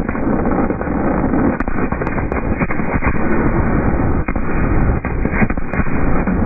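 Fireworks finale barrage, apparently slowed down: the bangs run together into a dense, continuous low rumble, with sharper cracks here and there.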